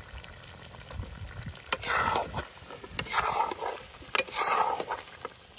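A cooking spoon scraping and knocking against a karahi while mashing softened tomatoes with the chicken: three scraping strokes about a second apart, each starting with a sharp knock.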